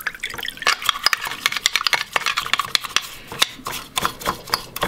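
Brush scrubbing the wet carburetor body of a 1940 Chevy truck over a bucket: quick, irregular scrubbing strokes with clicks of the brush against the metal.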